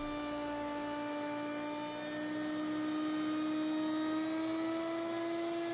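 Table-mounted router running under load as a walnut cutting board is fed across a core box bit to cut a juice groove. A steady whine that rises slightly in pitch midway.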